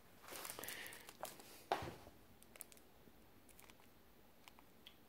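Faint rustling handling noise, then a sharp knock just under two seconds in, followed by a few light clicks.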